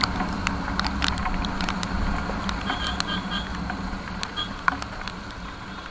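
Single-cylinder Yamaha MT-15 motorcycle engine running at a steady speed with wind and road noise, slowly getting quieter. Scattered clicks of raindrops hit the microphone in light rain.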